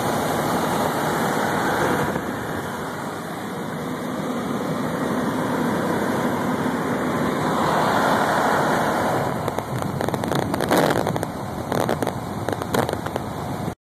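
Car driving at road speed, heard from inside the cabin: a steady rush of tyre and wind noise. In the last few seconds a run of sharp taps and crackles joins it, and the sound cuts off suddenly just before the end.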